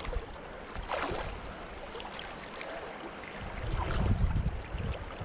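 Steady rush of flowing river water with a few short splashes, and wind rumbling on the microphone about four seconds in.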